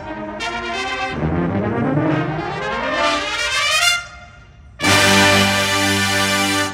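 Drum corps hornline, a full brass ensemble, playing together: a rising run of notes that cuts off about four seconds in, then after a brief gap a loud held chord near the end.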